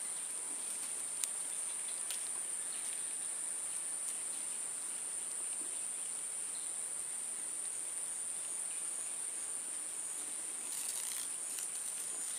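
Steady, high-pitched insect chorus that runs on without a break, with a few faint ticks about a second in and again near the end.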